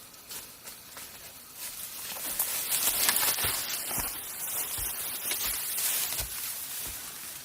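Rustling of leaves and brush, louder from about two seconds in, with several soft thuds.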